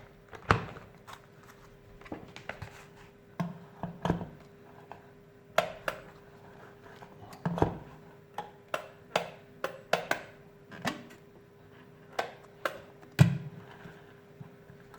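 Irregular sharp clicks and knocks of hard plastic and metal parts being handled on an electric kettle and its power base, about one or two a second, over a faint steady hum.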